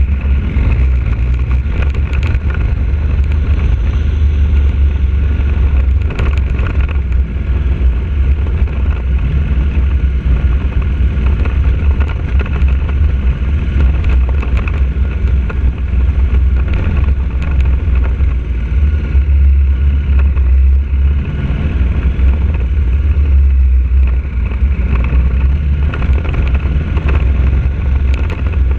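KTM 1190 Adventure's V-twin engine running at steady revs, pulling the bike uphill on a gravel track, under a heavy low rumble on the bike-mounted camera. A few brief knocks from bumps in the track.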